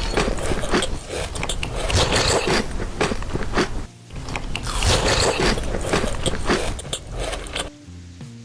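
Close-miked eating: crunchy food being bitten and chewed, dense crackling crunches with a short break about four seconds in, getting quieter near the end.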